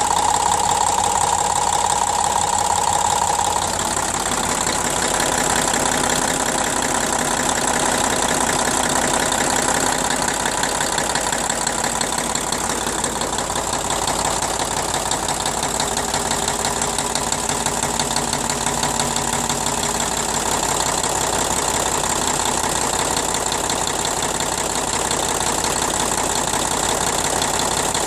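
YaMZ-236NE2 V6 turbodiesel running steadily with a knock, which the owner is unsure comes from an injector or from the injection pump. A higher whine drops away about four seconds in.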